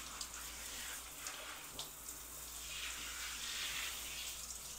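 Handheld shower sprayer running at weak water pressure, a soft steady hiss of water spattering on a dog's wet coat and the shower floor as she is rinsed.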